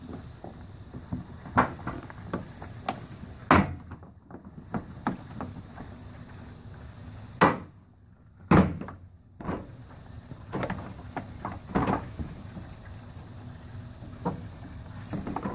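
Irregular clicks and knocks of hand tools and parts being handled in a car's engine bay, with several sharper knocks scattered through.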